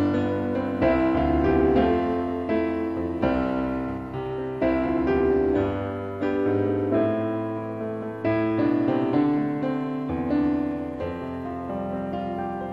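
Piano playing slow, gentle chords, each struck and left to ring over a held bass.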